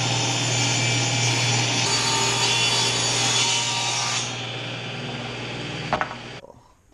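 Table saw ripping a long board lengthwise: the blade cuts through the wood over a steady motor hum. About four seconds in the cut finishes and the saw runs on a little quieter, then a sharp knock comes near the end before the sound drops away.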